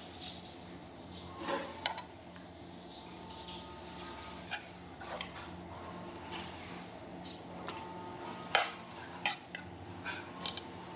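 Serving spoon clinking and scraping as pork Bicol Express is spooned into aluminium foil trays. There is a sharp clink about two seconds in and a few more near the end, over a faint steady hum.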